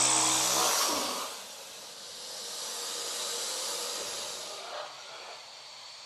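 Film sound effect of a giant crocodile vocalising: a deep growl fading out in the first second, then a long raspy, hissing breath.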